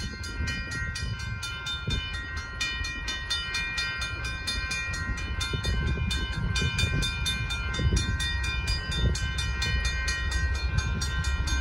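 Railroad grade-crossing warning bell ringing in rapid, even strokes, warning of an approaching train, over a low rumble.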